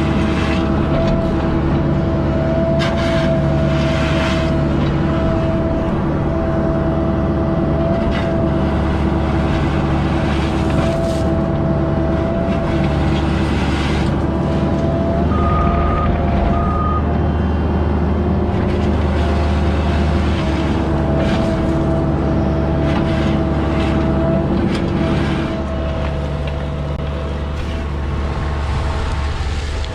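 A diesel earthmoving machine running steadily with a hydraulic whine. Two short high beeps come about halfway through, and the engine eases off a little near the end.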